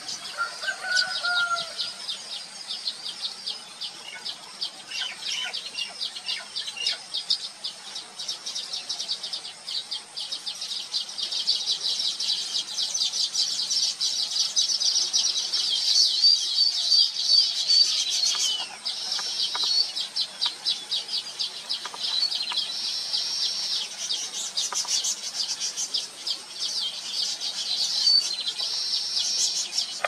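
Baya weaver colony chattering: a dense, continuous stream of rapid high chirps and ticks from males at their nests. It grows louder and busier through the middle.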